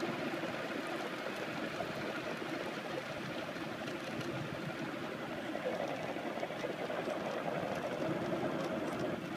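Steady rushing noise of a racing wheelchair rolling fast downhill: its narrow tyres on damp asphalt, with passing air.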